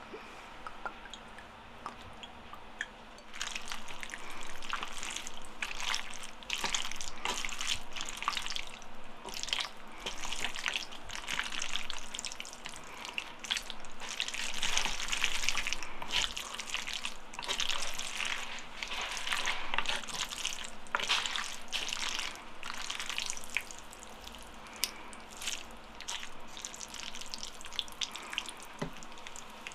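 Wooden chopsticks tossing and mixing noodles through thick black bean sauce in a bowl, making a dense run of wet, sticky squishing sounds. It starts about three seconds in and thins out near the end.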